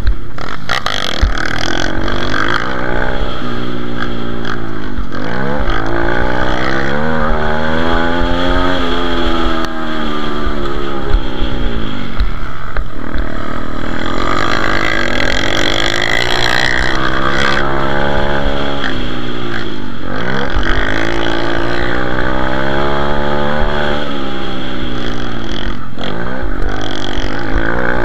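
On-board sound of a pit bike engine racing over a dirt track, revving hard: its pitch climbs and drops again and again, every few seconds, as the throttle is opened and rolled off for jumps and corners.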